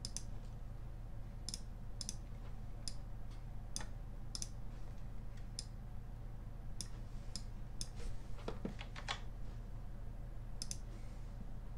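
Computer mouse clicking: about a dozen short, sharp clicks at irregular intervals, with a quick cluster of duller clicks around eight and a half to nine seconds in, over a steady low hum.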